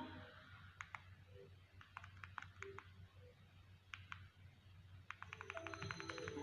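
Faint scattered clicks, then from about five seconds in a quick run of clicks with musical tones starting up.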